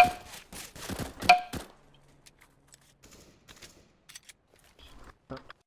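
Sound-effect previews playing: two loud, sharp knocks with a brief ringing tone, one at the start and one about a second later, then scattered faint clicks.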